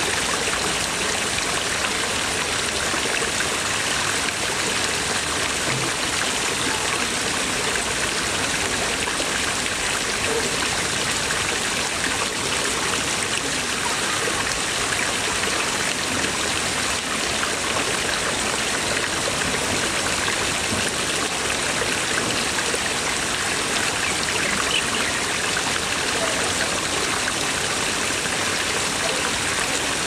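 Several water jets from carved stone dragon-head spouts pouring and splashing steadily into a lily pond.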